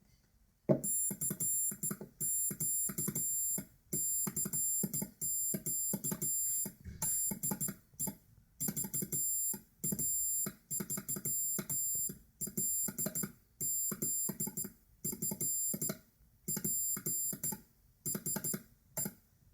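Morse code sent on a Stampfl key: an electronic sidetone beeping in short dots and longer dashes, keyed in groups with brief pauses between them.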